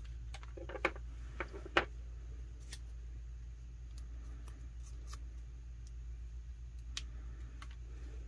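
A few short clicks and taps from hands handling small craft tools and vinyl, bunched in the first two seconds and then sparse and fainter, over a low steady hum.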